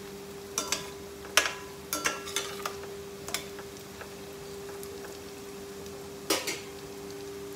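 Rice kurkure sizzling steadily in hot oil in a kadhai, while a metal utensil clinks against the pan several times as they are turned over.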